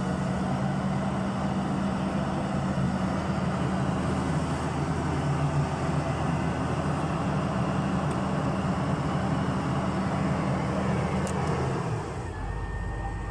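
Backhoe's diesel engine running steadily. The engine sound drops and changes about a second before the end.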